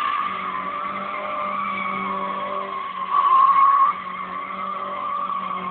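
Tofaş 131's tyres squealing without a break as the car spins donuts, with its engine running underneath. The squeal gets louder for about a second around the middle.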